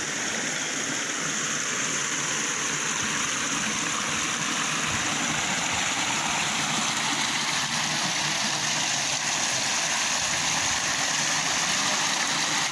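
River water rushing steadily over a small rocky cascade into a pool.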